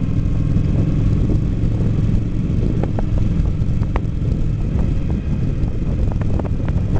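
Kawasaki Vulcan 900 Classic's V-twin engine running steadily at an even road speed, heard from the rider's seat.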